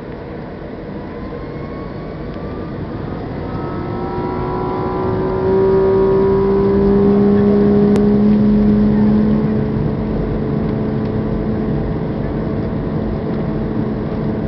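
Jet airliner's engines spooling up to takeoff power, heard from inside the cabin: the engine noise swells steadily, with whining tones that climb in pitch about four seconds in. It is loudest for a few seconds around the middle, then eases slightly while staying strong.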